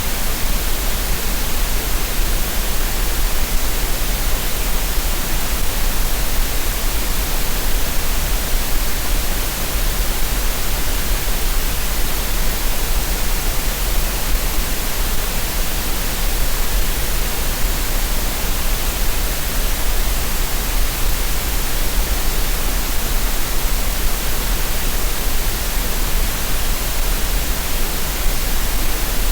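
Steady green noise: a continuous synthetic hiss with a deep low rumble underneath, even and unchanging throughout.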